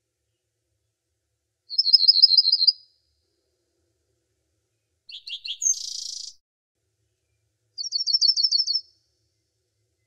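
Small songbird singing: two rapid high trills of about ten notes, each lasting about a second, near two seconds in and near eight seconds in. Between them comes a shorter phrase of a few quick falling notes that ends in a buzzy note.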